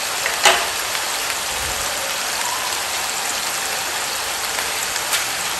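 Food frying in hot oil: a steady sizzle, with a sharp pop about half a second in and a lighter one near the end.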